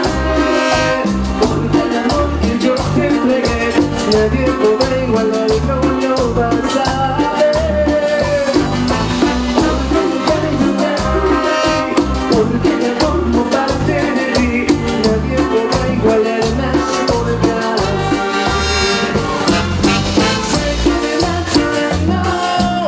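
A live Latin tropical dance band playing through a PA, with congas, accordion, electric bass and keyboards over a steady, even bass-and-percussion beat.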